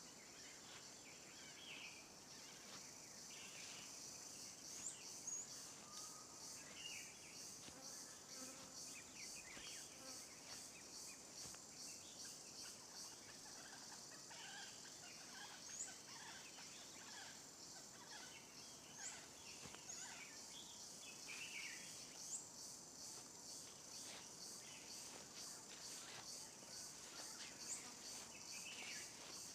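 Faint outdoor nature ambience: a steady high insect drone with scattered short bird chirps throughout.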